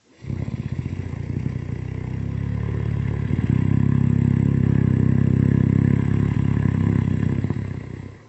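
One long, loud snore with a fast rattling flutter, lasting about eight seconds. It swells louder about three seconds in and fades out near the end.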